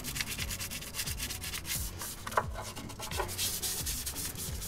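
Stiff nylon bristle brush scrubbing grime off wet engine parts in quick repeated strokes.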